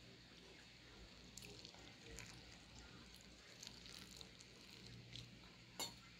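Faint scratching and small clicks of hands mixing dry flour for dumpling dough in a stainless steel bowl, with one sharper click near the end. A low steady hum lies underneath.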